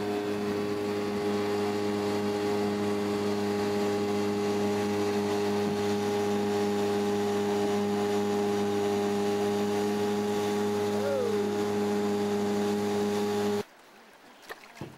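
Outboard motor of a small fishing boat running at a steady cruising speed, with water and wind rushing past as the boat crosses choppy water. It cuts off abruptly near the end.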